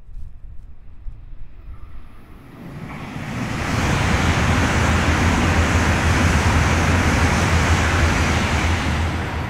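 E2 series Shinkansen in 200-series green-and-white livery passing through the station at speed. A rising rush of air and wheel noise builds about three seconds in, holds steady with a low hum while the train runs by, and begins to fade near the end as the tail car passes.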